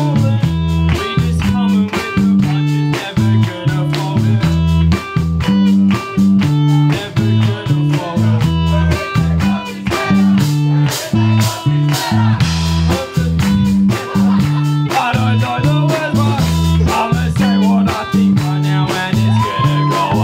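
Live rock band playing electric guitar, bass guitar and drum kit, with a steady drum beat under a moving bass line.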